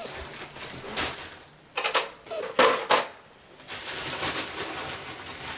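A few knocks and clatters from handling a plastic container, then a steady pour of water into it from about three and a half seconds in.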